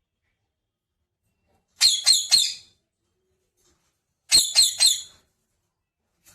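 Pet parrot giving two bursts of shrill calls, each burst three quick notes in a row, the second burst about two and a half seconds after the first.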